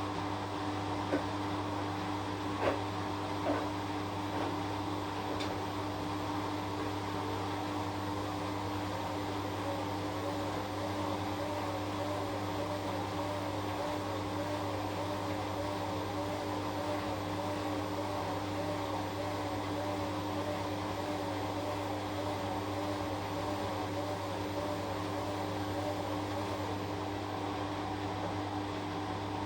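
Washing machine running with a steady motor hum, a faint tone wavering up and down through the middle, and a few light clicks in the first few seconds.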